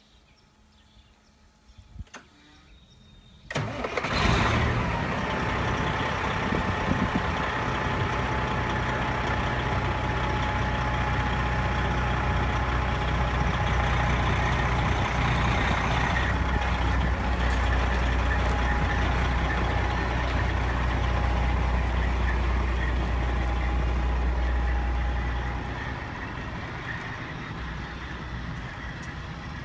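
1997 Peterbilt truck tractor's diesel engine starting about four seconds in, then idling steadily. Near the end the sound drops quieter as the truck pulls away.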